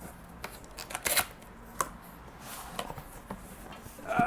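Cardboard box and paper packaging being opened and handled: scattered rustles, scrapes and clicks, with a brief squeaky tone near the end.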